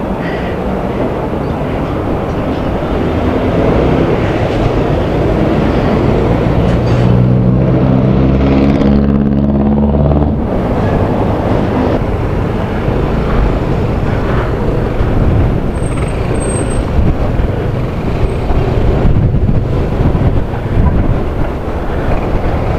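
Motorcycle riding in traffic: steady wind and road noise with engine sound. A louder engine note with a clear pitch stands out for a few seconds in the middle.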